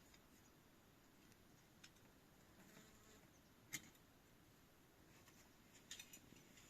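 Near silence with a few faint clicks and taps: one sharper click a little past halfway and a short cluster near the end.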